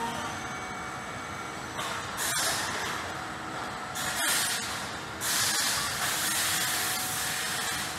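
Pieri AVR 400 ring-type stretch-wrapping line running: a steady machinery din broken by bursts of hissing, the longest and loudest starting about five seconds in.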